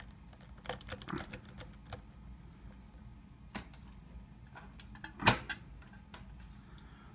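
Worm rake scraping and clicking against the pins of a knockoff Kwikset pin-tumbler lock cylinder: scattered small metallic clicks, with one louder click about five seconds in.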